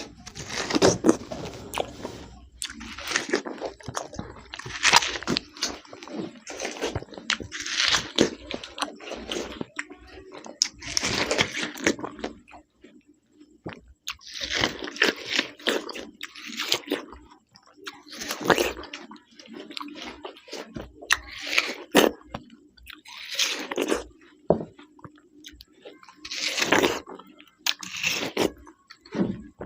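Two people biting into and chewing watermelon fast, with wet crunching bites at irregular intervals every second or two.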